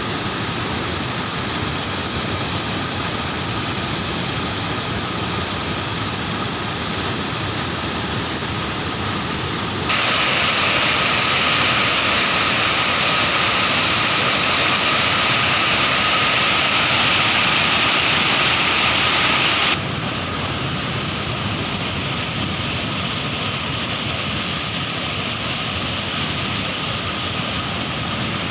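Waterfall's steady rushing roar of falling water. About ten seconds in it turns abruptly brighter and slightly louder, then drops back about ten seconds later.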